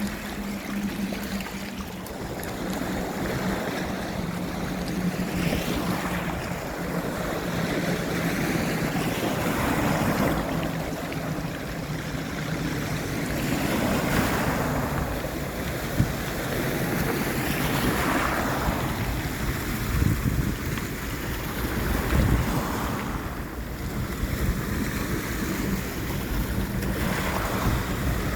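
Sea waves washing onto the shore in swells about every four seconds, with wind on the microphone. A steady low hum runs under the first half.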